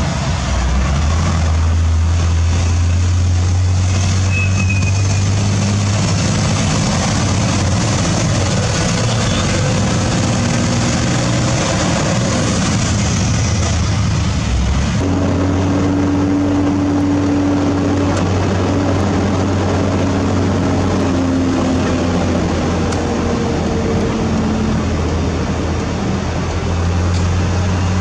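Isuzu Giga FVZ truck's diesel engine running steadily under way, heard from inside the cab with road noise. The engine note changes abruptly about halfway through.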